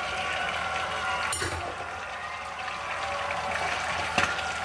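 Food sizzling in a frying pan, a steady hiss as the juices cook off, with two sharp knocks, about a second in and near the end.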